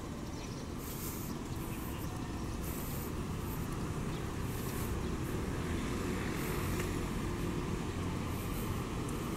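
Steady low rumble of distant road traffic, swelling slightly a few seconds in.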